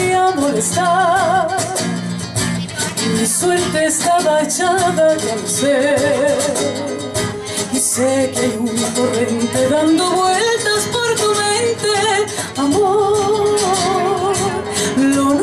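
A woman singing a slow ballad into a microphone over music accompaniment, amplified through PA loudspeakers; her held notes carry a wide vibrato.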